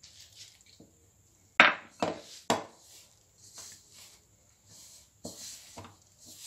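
Hand mixing a flour dough in a stainless steel bowl: rustling and squishing of the dough, with three sharp knocks on the bowl about half a second apart around one and a half seconds in, and two softer knocks a little after five seconds.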